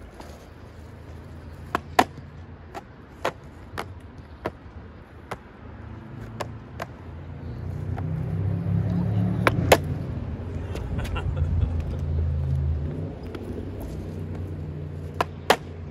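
An old skateboard's wheels rolling over rough concrete, a low rumble that swells about six seconds in and eases off after about thirteen seconds. Sharp clacks and knocks are scattered throughout.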